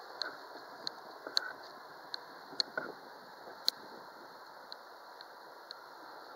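Quiet outdoor ambience by the tracks: a steady faint hiss with irregular short, sharp ticks, roughly one every half second to second.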